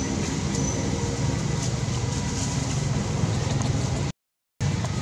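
Steady low rumbling background noise, broken by a sudden half-second dropout to silence about four seconds in.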